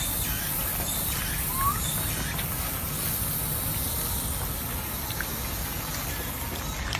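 Steady outdoor background hiss with a low rumble, and one short rising squeak about a second and a half in.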